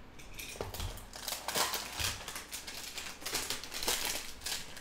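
Crinkling and rustling of plastic wrap and a cardboard trading-card box being handled, in a quick run of short, irregular crackles.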